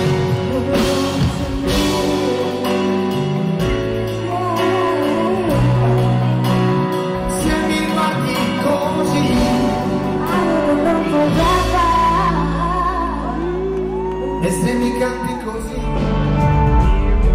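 Live pop concert music: a male and a female singer in a duet with a full band behind them.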